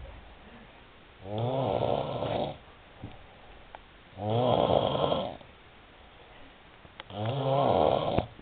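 A man snoring loudly in deep sleep: three long, rattling snores, each about a second long and roughly three seconds apart.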